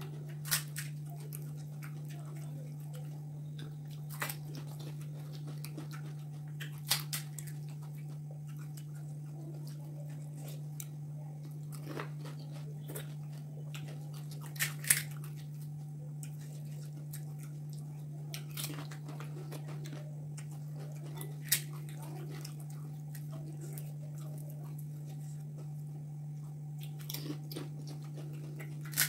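Crisp fried panipuri shells cracking and being crunched and chewed, in short sharp crunches every few seconds, over a steady low hum.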